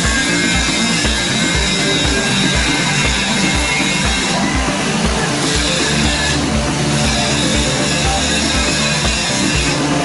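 Loud background rock music with a steady, driving drum beat.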